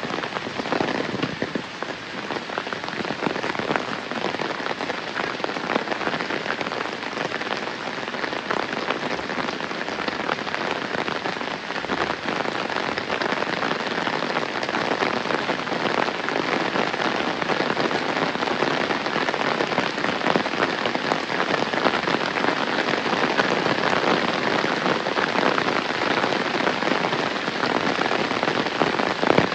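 Heavy rain falling steadily, a dense patter of countless drops, growing a little louder about halfway through.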